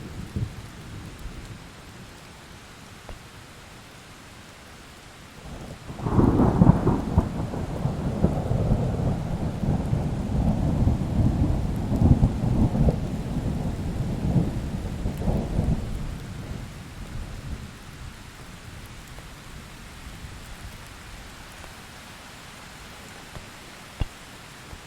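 Steady rain hissing throughout, with a long roll of thunder that comes in about six seconds in, rumbles loudly for around ten seconds with a couple of swells, and fades away, leaving the rain alone.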